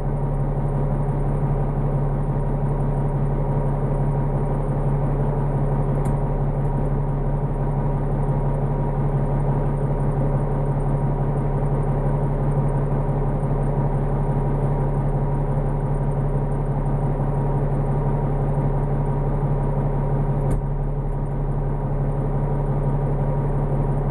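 Heavy diesel engine running steadily at an even speed, a constant low hum with no revving or gear changes.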